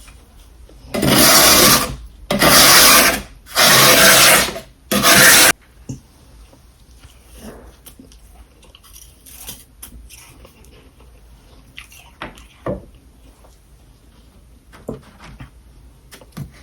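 Four loud rasping scrapes, each lasting about a second, of freezer frost being scraped up, followed by faint scattered clicks and taps.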